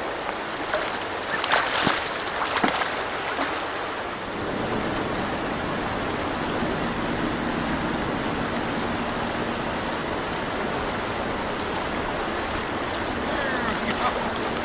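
Shallow stream water rushing steadily over riffles and rocks, an even hiss, with a few short knocks and bursts of noise about two seconds in.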